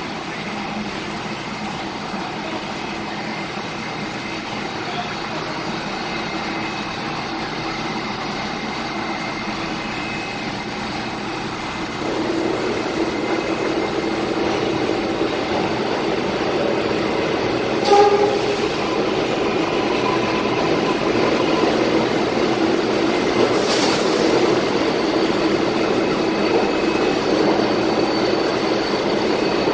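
R188 subway trains in an underground station: a steady rumble and hum from the train standing at the platform, growing louder about twelve seconds in as a second train runs in on the other track. There is a brief sharp knock about eighteen seconds in.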